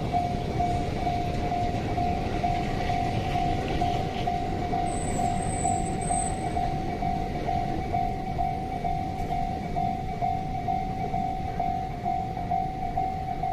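Japanese railway level-crossing warning bell ringing, an evenly repeating electronic ding, over a steady low rumble.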